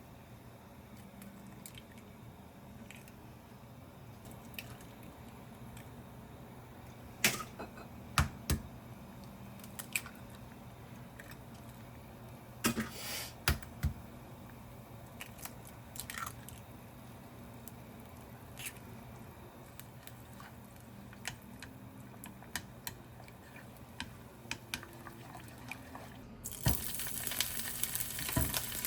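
Scattered small clicks and knocks of objects being handled, over a steady low hum. A couple of seconds before the end, a steady hiss starts and keeps on.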